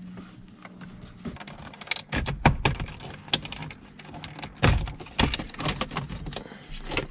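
Irregular plastic clicks and knocks from a Nissan Skyline R32's centre console trim being worked loose by hand around the shifter after its screws are out, with a few louder knocks between about two and five seconds in.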